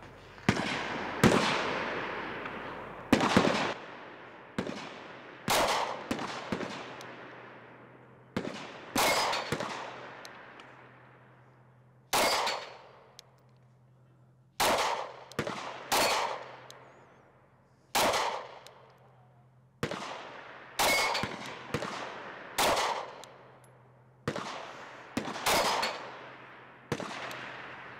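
SCCY CPX-2 9mm pistol firing single shots at a slow, uneven pace, one to two seconds apart with a few longer pauses. Each report is followed by a long, fading echo.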